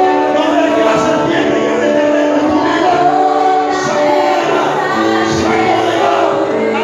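Congregation and praise band singing a worship song together, many voices over steady instruments.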